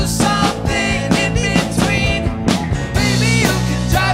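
Live rock band playing: a steady drumbeat under bass and electric guitars, with pitched melodic lines sliding on top.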